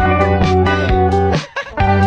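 Background music led by guitar with a steady beat, cutting out briefly about one and a half seconds in.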